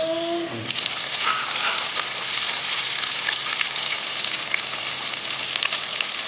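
Breaded chicken deep-frying in hot sunflower oil in an open pressure cooker: a steady sizzle with scattered small crackles and pops.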